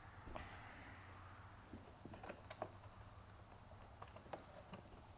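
Near silence, broken by a brief faint rustle and a few faint, scattered clicks of plastic trim pieces being worked loose by hand.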